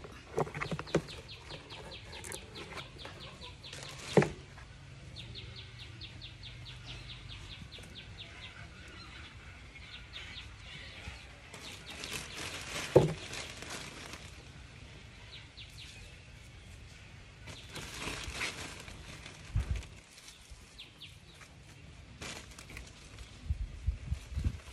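Outdoor ambience with a fast, even chirping trill that repeats in stretches, broken by a few sharp knocks, the loudest about four seconds in and halfway through, and some low thuds near the end, from the pot and plant being handled.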